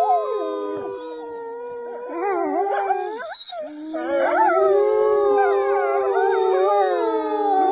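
Several dogs howling together, their held and wavering pitches overlapping. It breaks off briefly about three and a half seconds in, then comes back louder.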